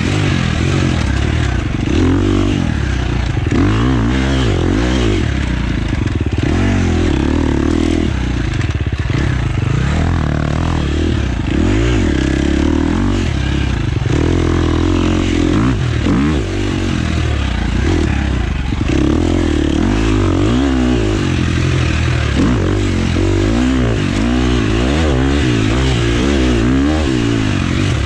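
Husqvarna FX 350 four-stroke single-cylinder dirt bike engine being ridden hard, its note rising and falling every second or two as the throttle opens and closes.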